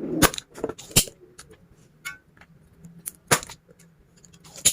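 Spring-loaded solder sucker (desoldering pump) clicking as its plunger is cocked and released to suck up molten solder: four sharp clicks with fainter ticks between them.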